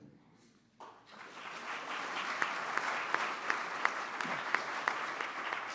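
Audience applauding, starting about a second in and going on steadily with individual sharp claps standing out.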